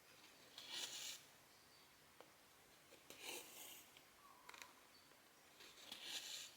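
Cotton embroidery thread drawn through 14-count cross-stitch fabric three times, each a soft hissing rasp about a second long, with faint clicks of the needle piercing the cloth between pulls.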